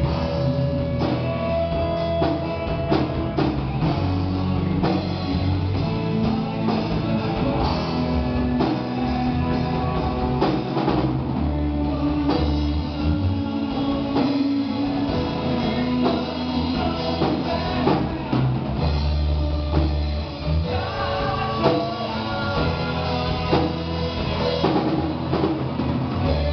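Rock band playing a song, with drum kit and guitar, and possibly a voice singing along.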